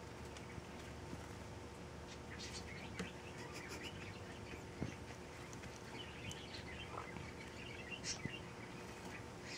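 Tangerine ringneck dove pecking at egg-and-vegetable mash in a glass bowl: scattered light taps and clicks of its beak, with faint high chirps in the background.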